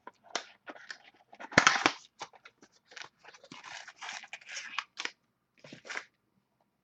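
Trading-card mini box being handled and its packaging torn open: irregular crinkling, tearing and clicks, with the loudest rip about a second and a half in.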